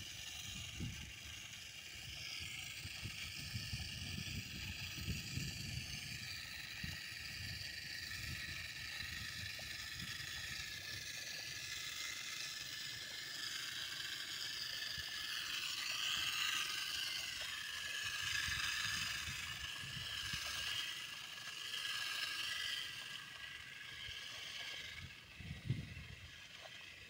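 Battery-powered 12-volt fertilizer spreader running, its small motor spinning out nitrogen fertilizer with a steady whirring hiss. Irregular low thumps sit underneath, with one sharper thump near the end.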